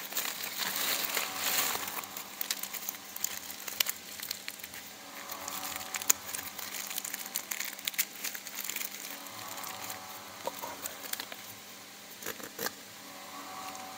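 Plastic packaging crinkling and rustling as small machine accessories are unwrapped by hand, with scattered light clicks and taps of the parts being handled. It is busiest in the first couple of seconds.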